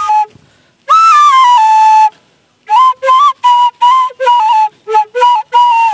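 Bamboo flute (bansuri) blown through the nose: a held phrase that steps down in pitch, then after a short pause a string of about seven short notes.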